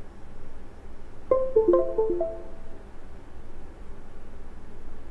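Background music: a short phrase of plucked-string notes, stepping downward, comes in a little over a second in and fades by about three seconds, over a steady low hum.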